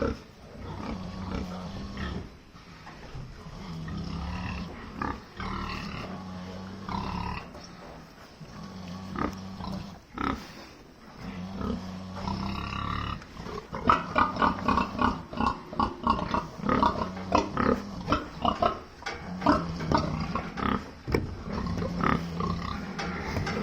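Sleeping pig snoring: low snores come back every few seconds. From about two-thirds of the way through, a louder run of quick sharp clicks joins in.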